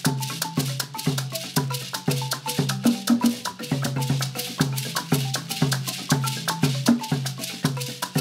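Traditional Zimbabwean shangara dance music on a marimba ensemble: short low bass notes and higher melody notes repeating in a fast, steady pattern, over a dense stream of rattle beats.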